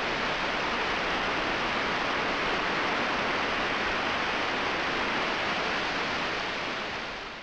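Steady static-like hiss, even and without pitch, fading away near the end.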